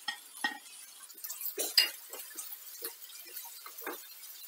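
A spatula knocking and scraping against a ceramic plate and a nonstick frying pan as chopped tomato is tipped in and stirred: a string of light, irregular clinks and taps.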